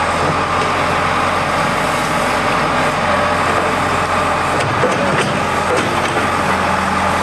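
John Deere tracked excavator's diesel engine running steadily.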